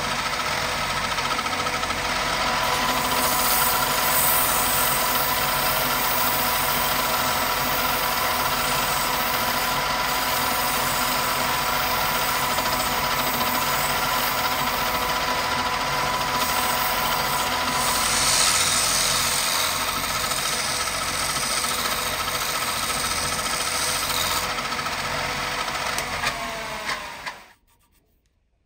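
Wood lathe motor running steadily with a whine, while a chisel cuts and then sandpaper rubs against the spinning wooden clothespin blank, with a hiss at times. Near the end the lathe winds down, its whine falling in pitch, and stops.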